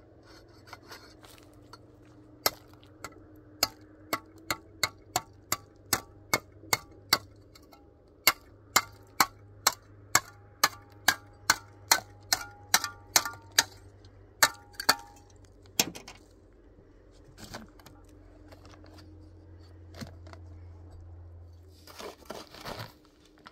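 Steel trowel striking a hollow clay brick with sharp knocks, about two a second, each with a short ring. The knocks stop after some fifteen seconds, followed by a few scattered knocks and scuffing.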